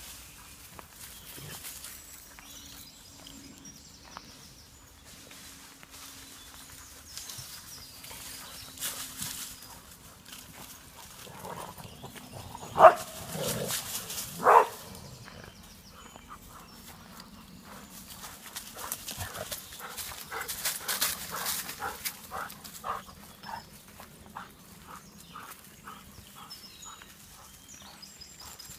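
A dog barks twice about halfway through, a couple of seconds apart. Later, steady footfalls crunch along a path of dry leaves at about two steps a second.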